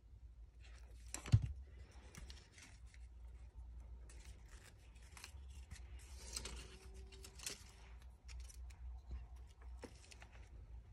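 Fringed cardstock strips rustling and crackling as they are handled and pressed together at a hot-glue join, with one sharp knock about a second in.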